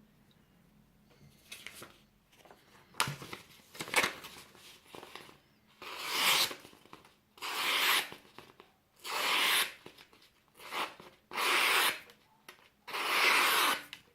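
A few sharp clicks, then six rasping strokes of just under a second each, about one every second and a half, with the fifth cut short.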